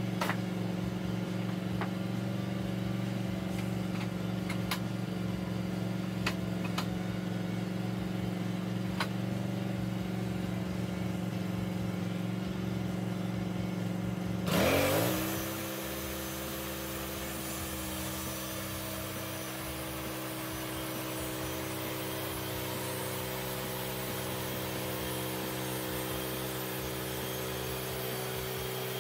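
Portable bandsaw mill's gas engine running steadily, with a few light knocks in the first half. About halfway there is a short loud burst, then the engine note changes and a steady sawing hiss joins it as the blade cuts through the spruce log.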